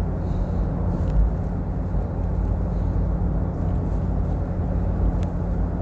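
Steady engine and tyre noise heard inside the cabin of a car driving at speed along a smooth road: an even, low drone.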